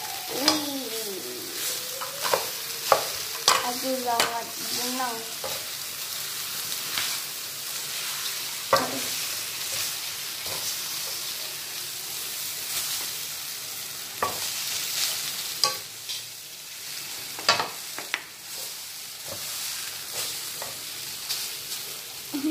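Fried noodles sizzling in a metal wok as they are stir-fried: a steady hiss with irregular knocks and scrapes of the utensil against the pan.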